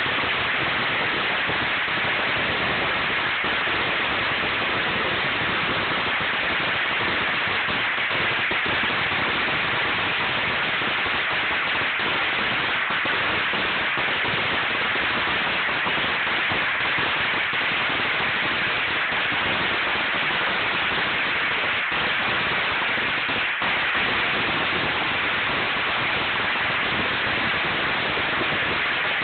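A long firecracker string going off without a break: thousands of small bangs so close together that they merge into one dense, even crackle.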